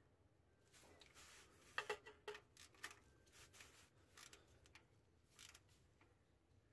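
Faint metallic clicks of a wrench and socket extension on a starter mounting bolt during final tightening to 37 ft-lbs. A cluster of sharp ticks comes about two seconds in, followed by a few scattered ticks.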